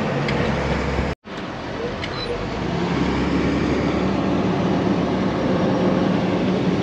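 Steady road and engine noise inside a moving vehicle's cab, cut off by a brief silent gap about a second in, then running on.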